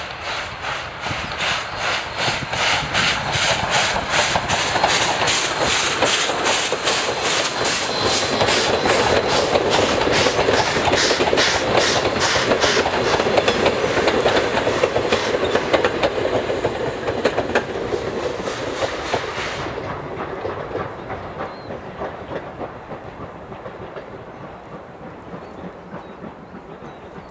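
A steam-hauled train of vintage passenger coaches passing close by, its wheels clattering over the rail joints in a steady rhythm of about four clicks a second. It is loudest midway, then the clatter stops abruptly and the rumble fades away as the train leaves.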